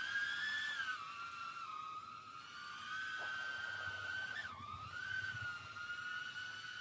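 Small 3-inch cinewhoop quadcopter in the air, its EMAX ECO II 2004 3000KV brushless motors and propellers giving a thin, steady whine. The pitch wavers up and down as the throttle changes, dipping sharply about four and a half seconds in.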